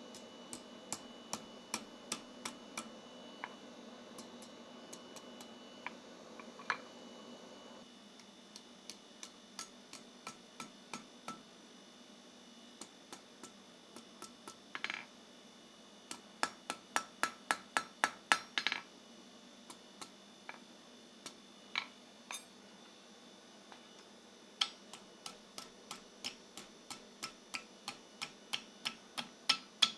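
Blacksmith's hand hammer striking hot iron on an anvil while forging a chest handle. The blows come in runs of about two a second, separated by short pauses, and each strike rings.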